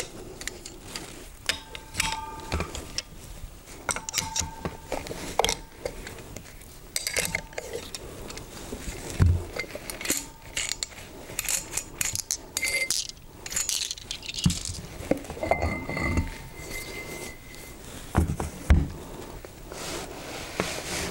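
Scattered metallic clinks and knocks of an open-end wrench working the metal acorn nuts off a positive displacement pump's stainless front cover, with the nuts and cover being handled. Several clinks leave a short ringing tone.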